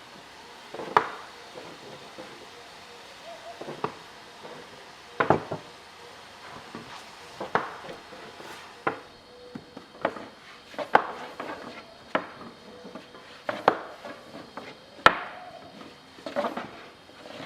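Irregular knocks and clinks of hard objects being handled, about one every second or so, over a faint steady hum.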